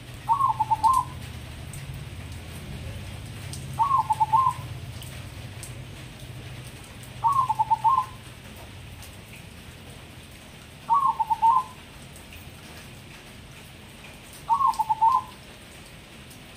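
Crossbred zebra dove (perkutut) cooing its song five times, evenly spaced about every three and a half seconds. Each phrase is a short run of quick notes.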